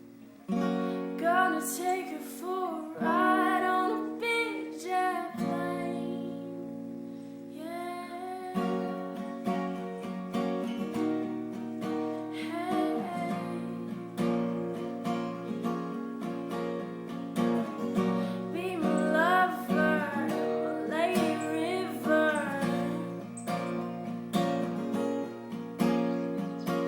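Background music: a song sung over strummed acoustic guitar, coming in about half a second in.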